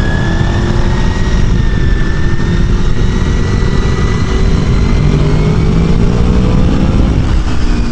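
1999 Honda VFR800's V4 engine pulling hard at track speed, its pitch climbing steadily for several seconds and then dropping near the end, with heavy wind rushing over the microphone.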